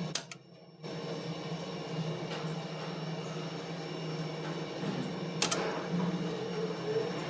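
Machinery humming steadily, with a sharp click just after the start and another about five and a half seconds in.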